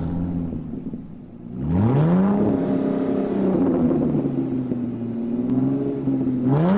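Car engine idling, then revving up about one and a half seconds in and holding at higher revs. It eases off slightly and revs up again near the end.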